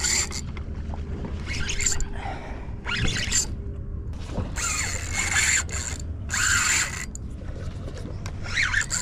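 Shimano spinning reel whirring in about six short bursts, each under a second, as a hooked bluefish is fought on the line.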